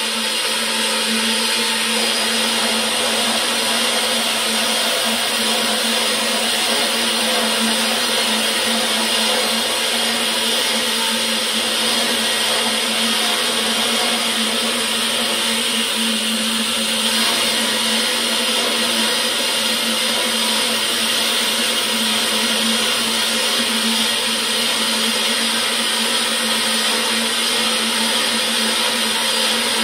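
Servo-motor-driven Craftsman 14-inch band saw with a 1/4-inch, 6-teeth-per-inch hook wood blade running at a motor speed of 1,000 RPM and cutting through a block of wood. It makes a steady whir with a constant hum.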